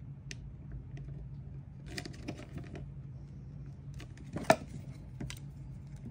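Small clicks and rustles of hands handling and pressing down plastic LED modules and their thin wires on a desk, with one sharp louder click about four and a half seconds in. A steady low hum runs underneath.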